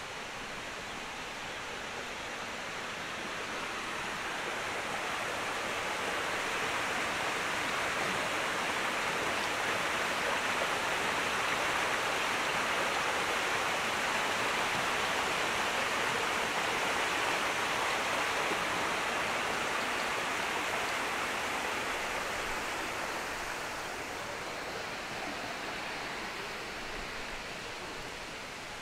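Running water, a steady rushing that grows louder over the first several seconds and fades again near the end.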